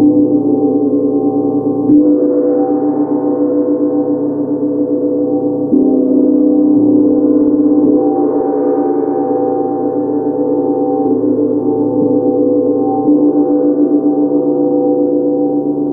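Tibetan gong played with a soft mallet: a sustained wash of several overlapping tones that never dies away. A fresh stroke comes every few seconds, the clearest at the start and about two, six and thirteen seconds in.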